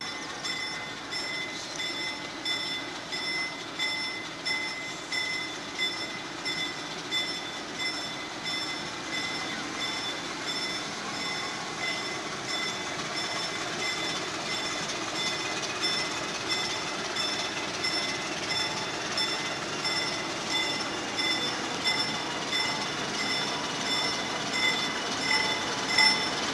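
Grade-crossing warning bell ringing in a steady repeating ding, over the low running of a diesel locomotive slowly pulling a passenger train toward the crossing, its sound growing gradually louder.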